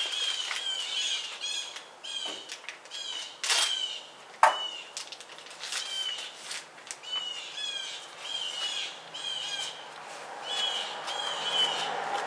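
A bird chirping over and over, one short call about every half second to second. Over it, scattered sharp clicks and crinkles of packaging being opened, with one loud snap about four and a half seconds in.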